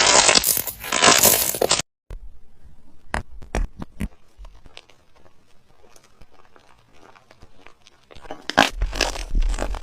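Slime being worked, with crackling, tearing and popping sounds. A loud dense stretch cuts off suddenly just under two seconds in, then gives way to quieter scattered clicks and pops, which grow louder again near the end.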